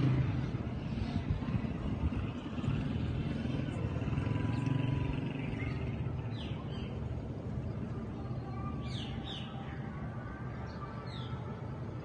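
Steady low outdoor rumble, with a few short bird chirps in quick pairs in the second half.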